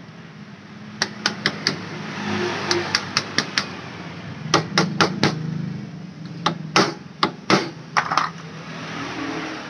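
Sharp metallic clicks and taps in quick runs of about four at a time, from a metal tool worked against the centre nut of a scooter's centrifugal clutch, over a steady low hum.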